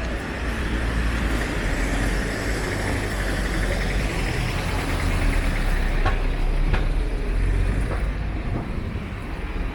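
A motor vehicle driving past close by: a low engine rumble with tyre hiss that swells through the middle and eases off near the end.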